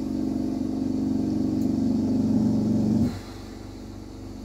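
A motor running with a steady hum that grows louder, then cuts off suddenly about three seconds in, followed by a couple of faint knocks.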